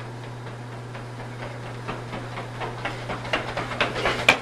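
Two runners' shoes striking a hard tiled floor in quick, overlapping footsteps, growing louder as they sprint closer and loudest near the end, over a steady low hum.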